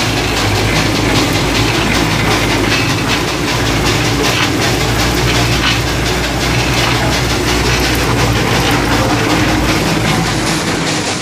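1913 Geiser Peerless Model R steam traction engine running under steam, heard close up: a steady, loud mechanical clatter of its moving parts.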